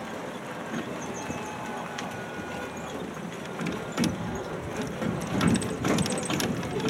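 A rubber-tyred tourist road train running along a concrete viaduct, heard from aboard: a steady running noise with the carriage rattling and knocking, the knocks coming more often and louder from about four seconds in.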